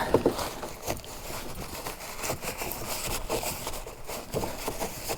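Toothbrush scrubbing dirt out of a plastic kayak steering-handle housing: a run of quick, irregular scratchy strokes.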